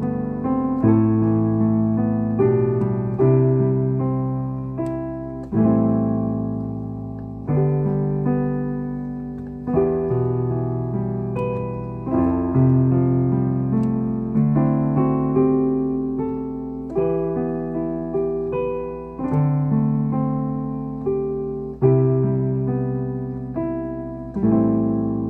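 Piano playing a slow hymn tune in full chords, each chord struck and left to ring and fade, with a fresh strong chord about every two seconds.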